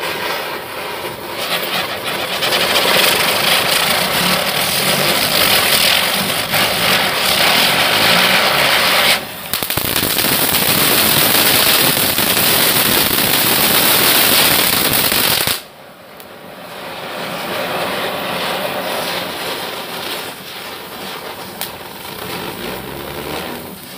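Diwali firecrackers going off one after another as a burning matchstick chain reaches them: fountain crackers spraying sparks with a dense crackling hiss. There is a short dip about nine seconds in, then a louder stretch that cuts off suddenly about fifteen seconds in, after which the hiss builds again and fades near the end.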